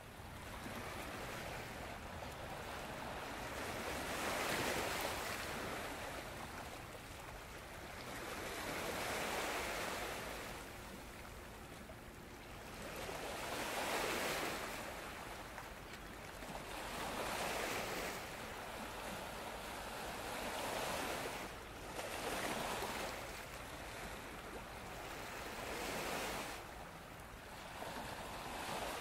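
Small waves washing in against shoreline rocks, swelling and easing every four to five seconds.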